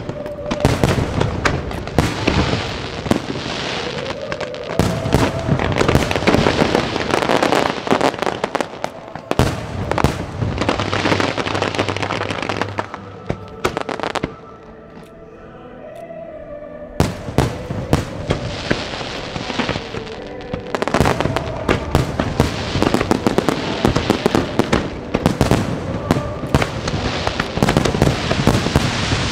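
Fireworks display going off in a dense barrage of rapid bangs and crackling, with music playing underneath. About halfway through the bursts stop for a couple of seconds, leaving the music, then the barrage starts again.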